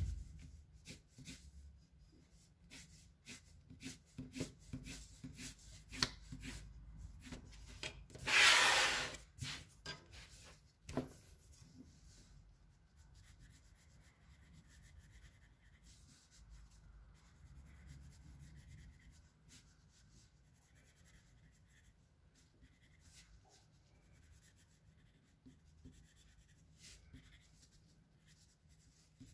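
Pencil scratching and rubbing on paper in quick sketching strokes, with a louder scraping noise about a second long around a third of the way in. The strokes turn softer and fainter in the later part.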